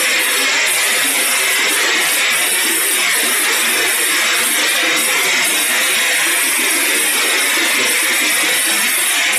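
Vibratory bowl finisher running, its wet ceramic tumbling media churning and rattling against itself and the bowl in a steady, dense clatter, as it deburrs and polishes.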